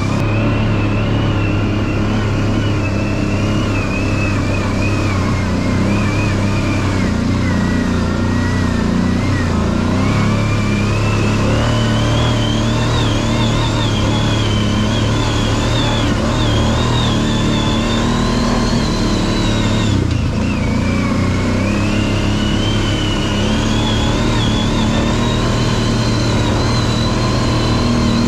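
ATV engine running steadily under way, with a high whine that climbs and drops a few times as speed and throttle change.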